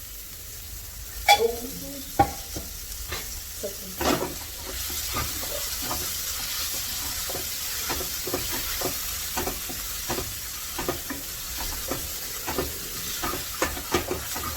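Spoon knocking and scraping in a pan as a red-chilli masala is stirred. About four to five seconds in, a steady sizzling hiss of the masala frying in oil sets in, with the spoon tapping the pan a few times a second.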